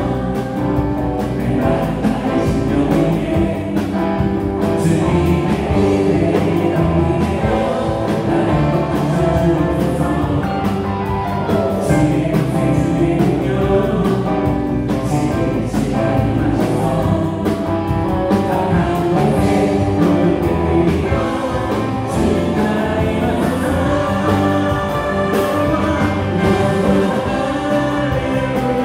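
Live praise band playing a worship song, with electric guitar, bass guitar, keyboards and drums, and voices singing over it.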